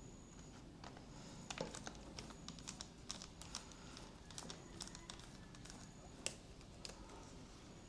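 Faint, scattered light clicks and taps of small screws and laptop parts being handled on a table, irregular, about a dozen over the stretch.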